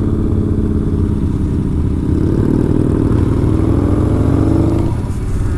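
Yamaha Bolt XV950R's air-cooled V-twin running under way, its pitch slowly rising for a few seconds, then dropping off near the end.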